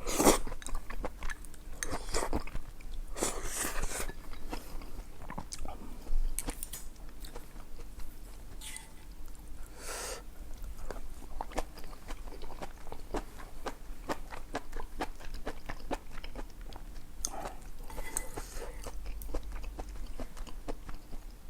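Close-miked chewing of food: a steady run of small wet mouth clicks, with a few louder, longer noisy mouthfuls scattered through.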